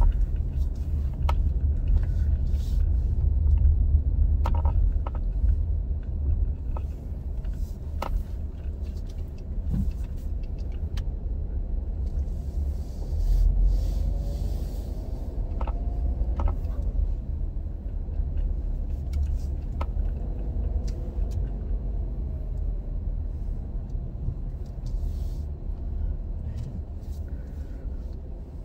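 A car driving slowly, heard from inside the cabin: a steady low rumble of engine and tyres, with scattered small clicks and knocks and a brief louder stretch about halfway through.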